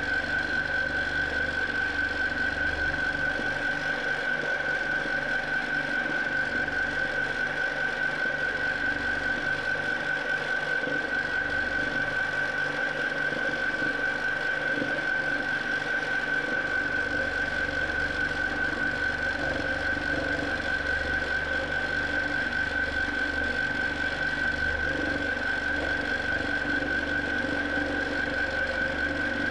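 Q'nique 19 longarm quilting machine running steadily as it stitches free-motion swirls, with a steady high whine from its motor.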